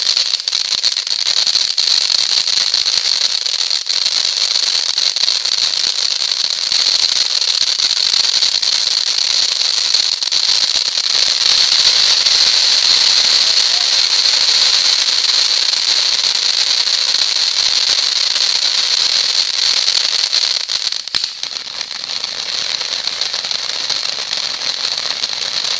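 World of Wonders ground fountain firework spraying sparks, a loud steady high hiss with crackle. The hiss dips briefly about 21 seconds in, then carries on a little quieter.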